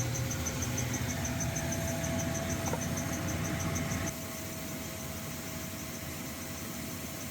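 Steady low mechanical hum with a faint, regular high ticking; the hum drops in level about four seconds in.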